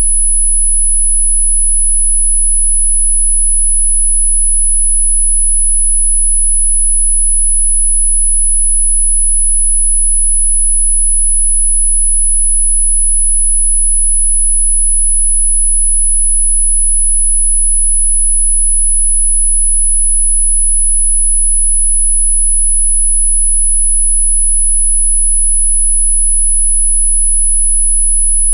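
Electronically generated pure sine tone, a single high-pitched note held perfectly steady, with a faint low hum beneath it.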